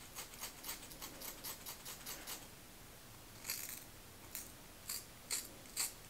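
Small scissors snipping through the straight hair of a wig. A quick run of about six snips a second gives way, after a brief pause, to single, louder snips about every half second.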